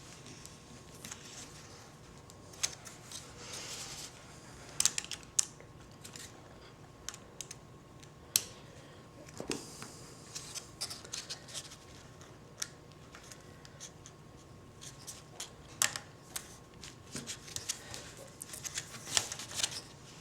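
Scattered small clicks and short scraping rustles of hands working plastic connectors and cables, plugging wiring back into the keyboard's circuit board.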